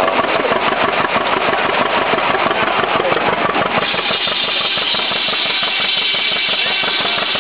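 Antique cedar shingle mill running, with the engine that drives it chugging in a fast, even rhythm. About four seconds in, a steady higher-pitched whine joins as the carriage feeds a cedar block into the saw.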